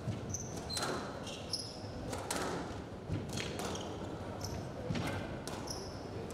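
Squash rally: sharp knocks of the ball struck by rackets and hitting the court walls, roughly one a second. Short high squeaks of shoes on the court floor come between them.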